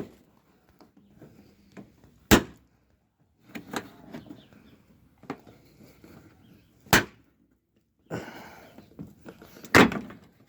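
A plastic trim cover being worked out of its snap clips: a handful of sharp plastic snaps and knocks, with rustling handling between. The loudest snaps come about two, seven and ten seconds in.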